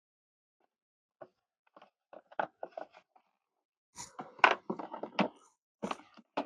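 Irregular clicks, knocks and scrapes of plastic parts being handled and fitted together during reassembly of a motorcycle's storage-box lock housing. They start sparse about a second in and come thick and fast between about four and five and a half seconds in.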